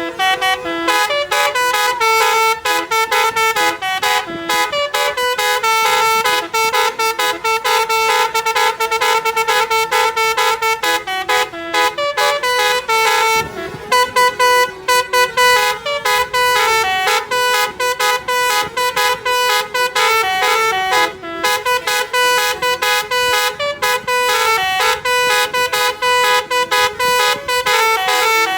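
Basuri multi-tone telolet bus horn playing a fast melody of short notes that jump quickly between pitches, with a brief pause about halfway.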